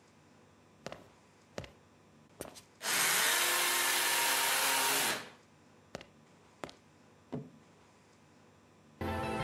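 A vacuum cleaner's motor switched on, running loudly for about two seconds with a hum that rises as it spins up, then cut off. Several sharp clicks come before and after it.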